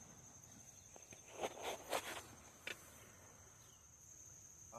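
A dog's scrabbling and knocking in a plastic half-barrel bucket of toys: a few brief rustles and bumps about a second and a half in, then a single click, all faint. A steady high-pitched cricket trill runs underneath.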